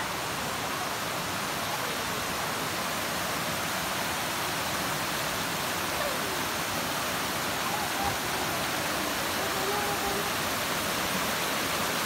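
Steady rushing of a mountain creek tumbling over rocks, an even, unbroken wash of water noise.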